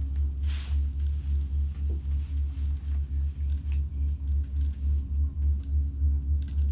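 Low rumble throbbing regularly about three to four times a second, with a faint steady hum above it, on a moving chairlift. There is a brief sharp noise about half a second in.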